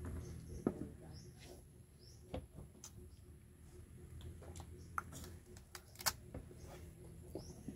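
Wet mouth sounds of sucking and chewing the pulp-coated seeds of a fresh ripe cacao pod: scattered small clicks and smacks.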